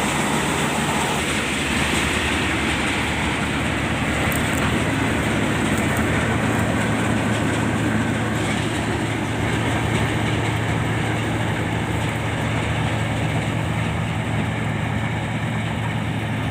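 Heavy farm machinery running steadily, a constant engine hum under a broad mechanical din.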